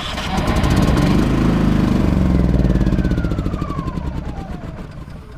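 Champion 3100-watt inverter generator's small gasoline engine firing and running after a remote start, then slowing with a falling whine as it begins to die. It is hard to start after sitting unused for months and keeps stalling until it catches.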